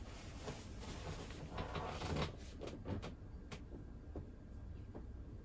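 Kerokan scraping on a person's back: soft repeated scraping and rubbing strokes over the skin, with a few light clicks. The strokes are busiest about two seconds in.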